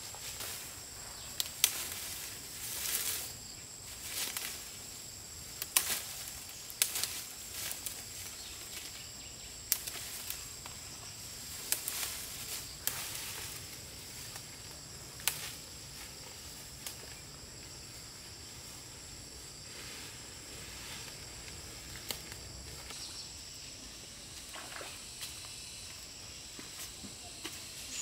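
Insects droning steadily at a high pitch, with scattered rustling and sharp clicks, most of them in the first half.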